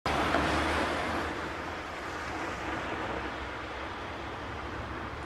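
A hatchback car driving past close by, loudest in the first second, then running on more steadily as it pulls away up the street.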